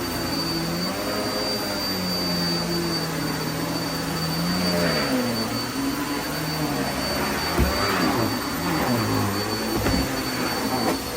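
Vacuum cleaner running steadily with a high whine, its motor tone wavering up and down, and a couple of short knocks in the second half.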